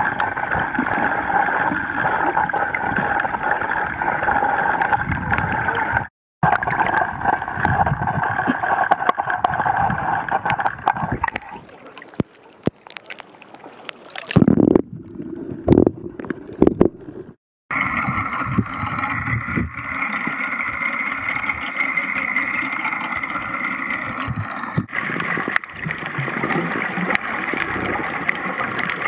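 Muffled underwater water noise picked up by a camera below the surface: a steady rushing hiss with gurgling. In the middle there is a quieter patch, then a louder, uneven stretch of sloshing, and the sound drops out abruptly twice.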